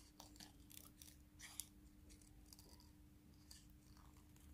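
Faint snips and clicks of small scissors trimming a thin plastic disc cut from a plastic bottle, over a low steady hum.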